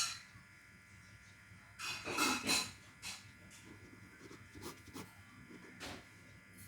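Faint steady electrical hum with a few soft clicks and a short rustling noise about two seconds in.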